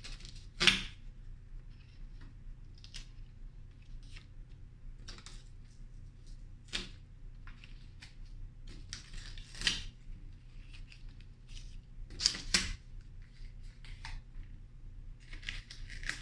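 Cutout story pictures being taken off and put on an easel board by hand: scattered rustles, taps and clicks, the loudest about half a second in, near ten seconds, and twice around twelve seconds.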